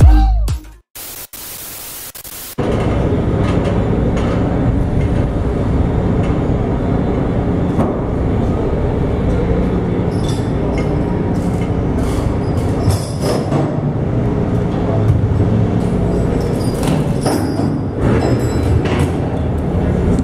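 Electronic intro music cuts off at the start, followed by about a second of static hiss. Then a steady low machinery rumble of a working container ship and port, with occasional clanks and knocks as the transformer's lashing chains are worked loose.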